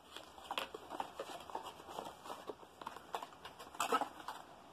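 Hands handling a small cardboard box: scattered light rustles and clicks, with a louder cluster of clicks about four seconds in.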